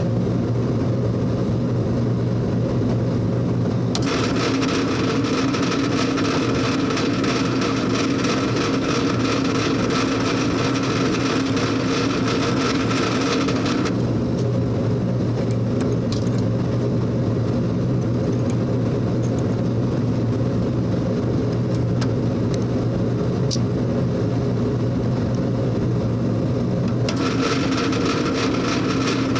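Drill press motor running steadily while a twist drill bores mounting holes in a metal block. The bit cuts in two spells, from about 4 to 14 seconds in and again near the end, each adding a higher whine and hiss over the motor hum.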